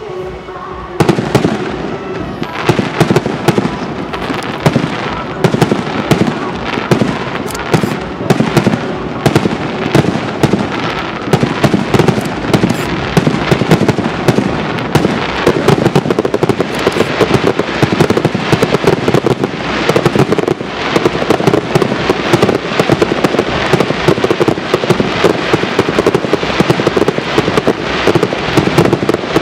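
Aerial fireworks display: a dense, unbroken barrage of shell bursts with rapid overlapping bangs and crackles, starting abruptly about a second in.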